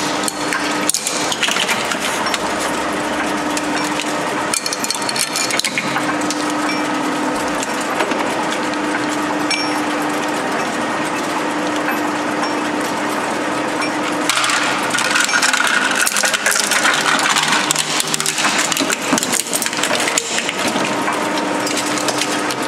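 Twin-shaft shredder running with a steady hum while its steel cutter discs crunch and crack plastic toys and Play-Doh tubs. The crunching grows louder and denser about 14 to 18 seconds in, as a plastic playset goes through.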